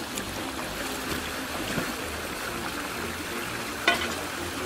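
Shallow stream water running and sloshing around a person wading in it while stirring the streambed to drive fish into a scoop net. There is a single sharp knock about four seconds in.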